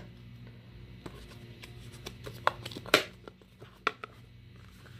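Handling noise from a flat metal survival-card multi-tool and its paper insert: a few light clicks and taps, the loudest about three seconds in, over a low steady hum.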